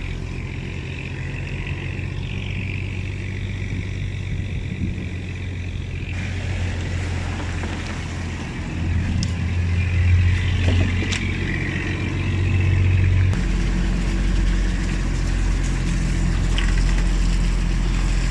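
A fishing boat's engine running steadily, with its drone changing abruptly in pitch and level twice, about six and thirteen seconds in.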